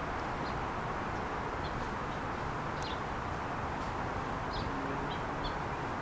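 A steady rushing background noise, with a few faint, short bird chirps scattered through it.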